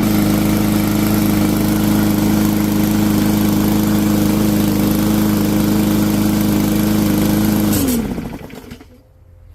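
Powermore single-cylinder engine of a Yard Machines push mower running steadily at speed, now that its clogged carburetor main jet has been cleaned. About eight seconds in it is shut off, and the pitch falls as it winds down to a stop.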